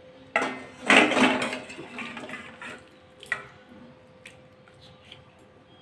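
Thick fish curry poured from a kadai into a stainless steel bowl: a wet splash and slosh about a second in that trails off, then a few light clicks and scrapes of a spatula pushing the last of it out.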